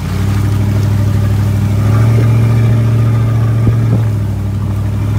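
Toyota Land Cruiser 100's V8 engine running steadily while the truck creeps along a dirt road, a little louder from about two seconds in. Two short knocks come near the four-second mark.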